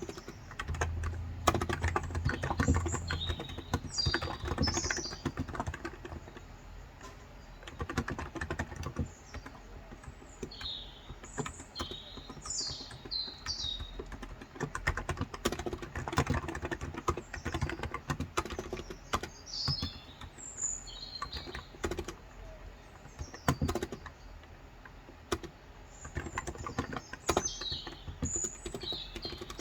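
Typing on a Cox Endeavour 35 g tenkeyless electro-capacitive (Topre-style) keyboard: rapid keystroke clicks in runs with short pauses. Small birds chirp outside in quick high notes throughout.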